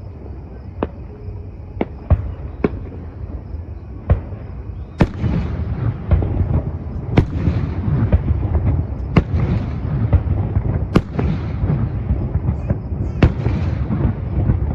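Fireworks show: separate sharp bangs of aerial shells. About five seconds in they thicken into a steady barrage of bangs over a continuous rumble and crackle.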